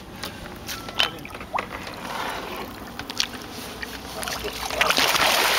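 Scattered knocks and small splashes as a gaff is worked on a hooked yellowfin tuna beside a small boat's hull. Near the end it changes to loud, continuous splashing as the tuna thrashes at the surface.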